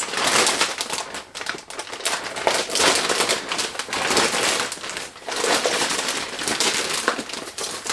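Clear plastic packaging crinkling and rustling as it is handled and pulled open, a dense crackle that runs on with brief lulls.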